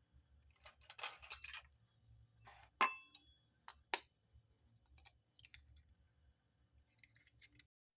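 Faint, scattered clinks and taps of kitchenware, with a ringing clink about three seconds in and a sharp tap soon after: eggs being cracked against a bowl of dry pancake ingredients.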